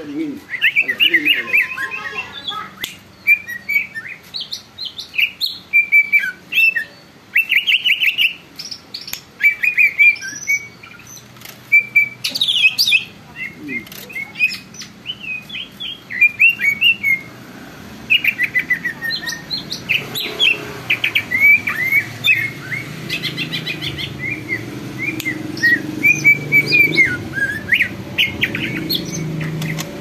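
Caged green leafbird (cucak ijo) singing loudly: runs of quick chirps and rapid trills, phrase after phrase with short breaks. A low background hum builds in the second half.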